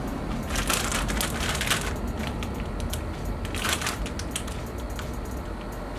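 Chip bag crinkling and rustling as it is handled, in two denser crackly spells: one about half a second in that lasts over a second, and a shorter one about three and a half seconds in, with scattered crackles between.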